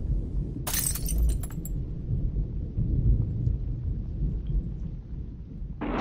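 Logo-intro sound effects: a steady deep rumble, with a brief burst of crackling, shattering clicks about a second in.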